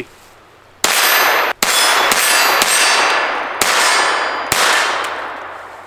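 Kel-Tec CP33 .22 LR pistol fired unsuppressed, about six shots at an uneven pace. Each shot leaves a long ringing tail that runs into the next, and the last one fades out near the end.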